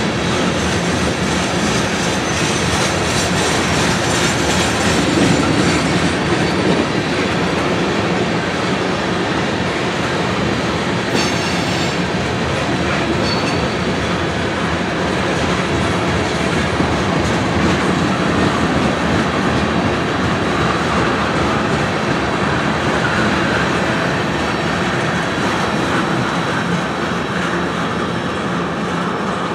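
Freight train of tank cars rolling past, steel wheels clattering steadily over the rail joints.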